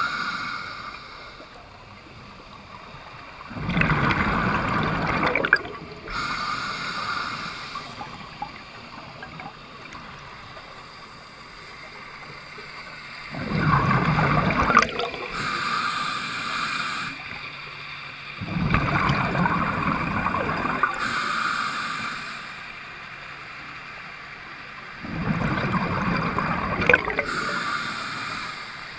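Scuba diver breathing through a regulator underwater: a hiss as each breath is drawn through the demand valve, then a loud rush of exhaled bubbles, about four breaths several seconds apart.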